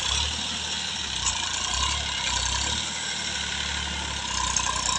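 Farm tractor's diesel engine running while it pushes and levels loose soil with a rear blade, its low rumble swelling and easing every second or so as the load changes.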